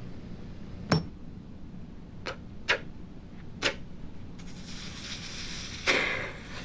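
Hard object knocks as a metal award is handled: a sharp tap with a brief ring about a second in, then three lighter clicks. From about four and a half seconds in, a long breathy noise of a man breathing in close to the award, louder near the end.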